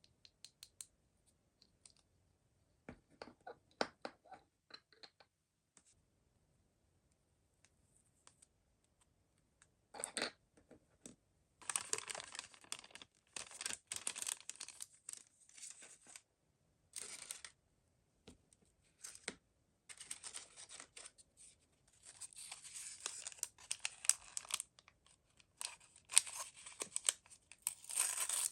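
Mystery toy packaging being unwrapped by hand: a few light clicks and taps at first, then from about ten seconds in, repeated spells of tearing and rustling wrapper with short pauses between.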